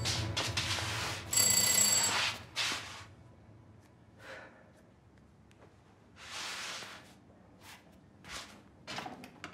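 A bell ringing in short bursts: one at the start and another about a second and a half in, each under a second long. It is followed by faint scattered rustles and knocks.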